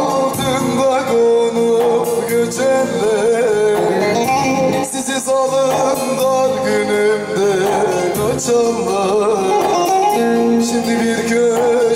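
Teke-region Turkish folk music played on a bağlama (long-necked lute) and a Korg Pa800 arranger keyboard, with a wavering, ornamented melody.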